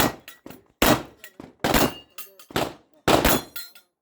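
Beretta 92 9mm pistol fired five times in steady succession, each a sharp crack with a short echo; the last two shots come closer together.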